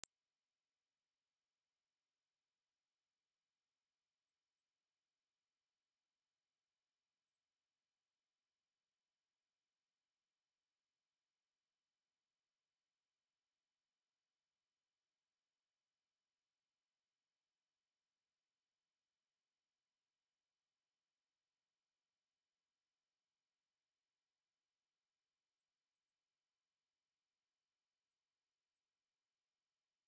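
A steady, unbroken high-pitched pure tone: an electronically generated 8382 Hz sine wave, used as a speaker test tone.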